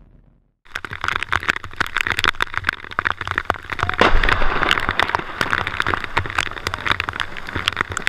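Rain falling on a river, a dense, loud patter of drops close to the microphone over the wash of the water. It starts suddenly less than a second in, after a brief silence.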